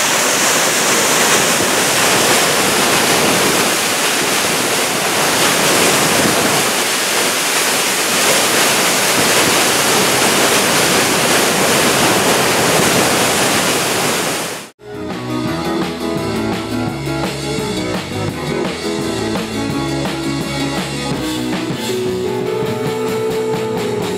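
Waterfall pouring into a rocky pool: a steady, dense rush of white water. About two-thirds of the way through it cuts off suddenly, and background music with a steady beat begins.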